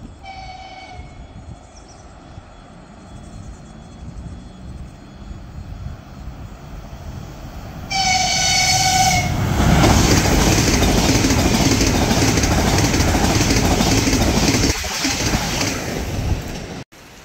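A Lastochka ES1P electric multiple unit sounds its horn twice, a short faint blast just after the start and a louder one of about a second as it nears, then runs through the station at speed with a loud rush of wheel and air noise and a rhythmic clatter of wheels over the rails. The sound cuts off suddenly near the end.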